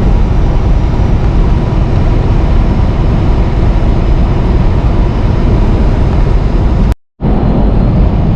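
Semi truck driving at highway speed, heard from the cab: a steady, loud rumble of engine and road noise. It cuts to silence for a moment about seven seconds in, then resumes.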